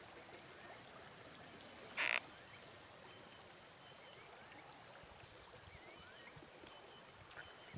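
Faint, steady wash of a flowing river, with small high chirping animal calls scattered through the second half. A brief noisy burst about two seconds in is the loudest sound.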